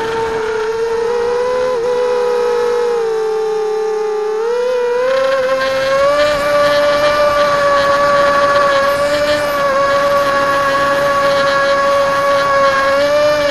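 Coptergeist CGX250 mini quadcopter's motors and propellers whining in flight, a steady pitched drone. The pitch sags lower about three seconds in, then climbs and holds higher from about five seconds on.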